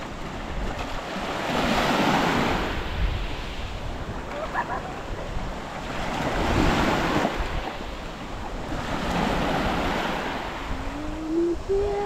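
Small waves breaking and washing up a sandy beach, the surf swelling three times, about two, six and a half, and ten seconds in.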